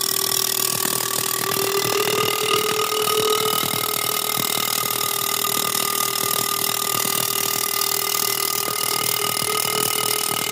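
A machine running steadily with a loud hiss and a few steady tones. It starts suddenly just before, right after a quick run of clicks.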